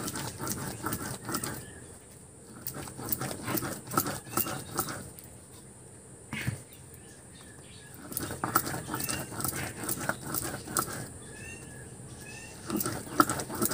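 Grinding stone and hand-stone (shil and nora): the stone is rubbed back and forth over pumpkin flowers and red lentils to make a paste, giving a gritty scraping of stone on stone in spells with short pauses between.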